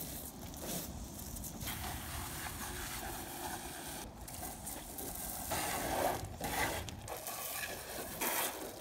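Water from a garden hose spray nozzle rinsing the hull of a rowing shell: an uneven spray hiss that grows louder in stretches around the middle and again near the end, as the residual bleach is washed off.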